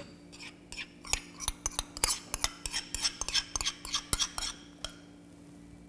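Metal spoon scraping and clinking against a bowl in a quick, irregular run as thick condensed milk is scraped out into a blender jar, stopping about five seconds in.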